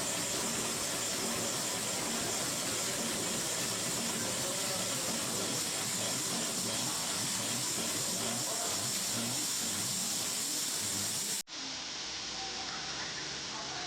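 Vintage MAN submarine diesel engine running: a loud, steady hissing mechanical din. About eleven seconds in it cuts off suddenly, and a quieter, different sound with a few steady tones follows.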